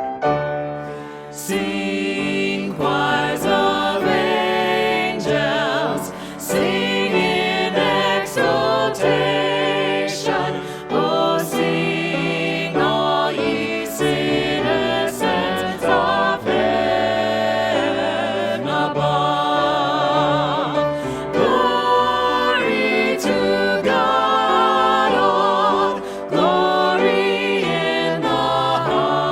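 Music: a choir singing, the voices wavering with vibrato.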